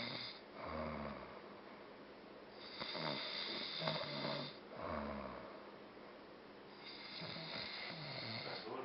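A sleeping man snoring heavily: a deep snore about every four seconds, with a hissing breath between them.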